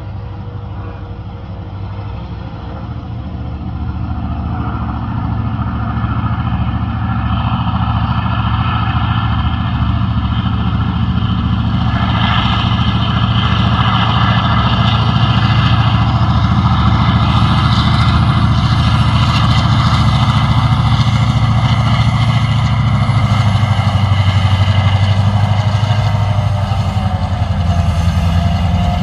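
Three diesel-electric freight locomotives hauling a heavy train up a grade, engines under load: a deep, steady engine drone that grows louder over the first several seconds as they approach, then holds.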